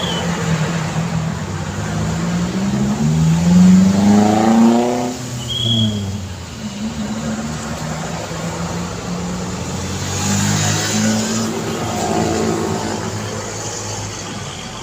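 Road traffic with motor vehicles passing close by. About four seconds in, one engine climbs in pitch as it accelerates past and then falls away, followed by a short high beep. Another vehicle passes around ten seconds in.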